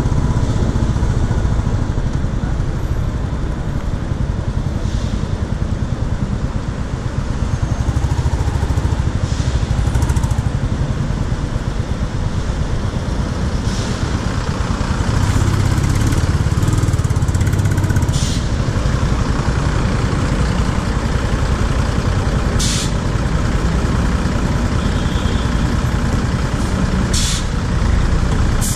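Royal Enfield Classic 350's single-cylinder engine running at low speed in dense traffic, with city buses running alongside. Several short hisses from the buses' air brakes cut through now and then.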